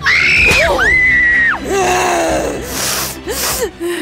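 A cartoon character's high-pitched wordless cry, rising then falling, then held and dropping away, followed by lower wavering vocal sounds, over background music.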